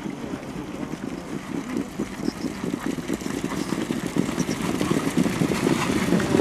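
Hoofbeats of a Norwegian coldblood trotter and the rumble of its sulky on the dirt track, a dense patter that grows steadily louder as the horse approaches.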